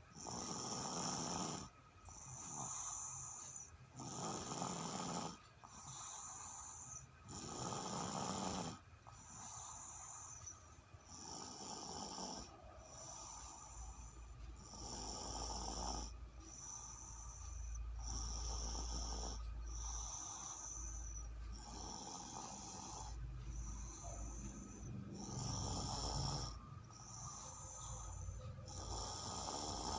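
A person snoring in sleep, a noisy breath about every two seconds in a steady rhythm.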